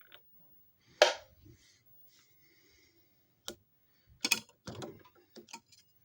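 Handling noises from a disc repair machine: a single sharp click about a second in, then a quick run of clicks and knocks in the last two and a half seconds.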